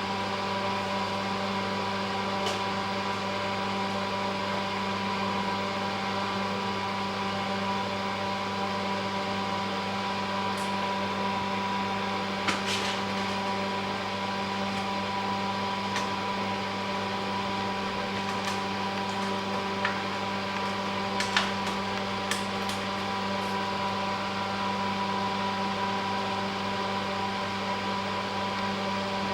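Steady electric machine hum with several constant tones, with a few faint short clicks partway through.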